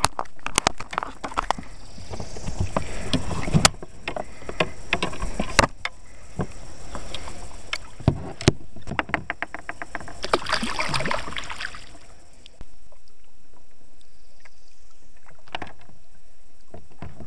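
Kayak being paddled: repeated swishing washes of water from the paddle strokes, with many sharp knocks and clicks in between. The strokes stop about twelve seconds in, leaving a steady quieter hiss.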